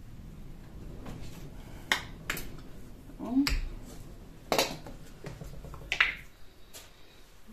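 Sharp plastic clicks and taps from acrylic paint tubes and their caps being handled, about six in all, spread out unevenly, with a short rising squeak near the middle.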